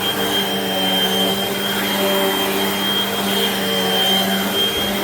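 Hoover WindTunnel Maxx bagged upright vacuum cleaner running steadily, its motor giving an even rushing drone with a constant high whine over a low hum.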